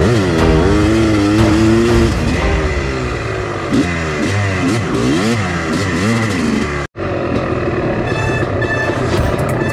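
Honda CR250R 250cc single-cylinder two-stroke engine revving up and down repeatedly as the bike is ridden over a muddy trail. The sound cuts out for an instant about seven seconds in, then steadier engine sound continues.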